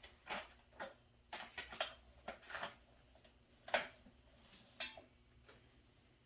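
Plastic parts of a pressure washer being handled and fitted: a scatter of short clicks and knocks, the sharpest a little before four seconds in, as the nozzle holder is put on.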